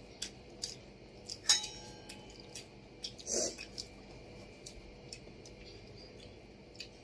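Faint sounds of eating at a table: scattered light clinks and taps of china plates and steel bowls, the loudest about a second and a half in with a short ring, and a brief muffled sound a little past three seconds.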